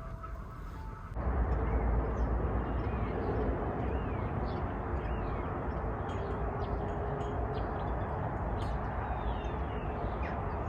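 Outdoor ambience: birds chirping and calling repeatedly over a steady low rumble, starting abruptly about a second in after a quieter stretch with a few soft steady tones.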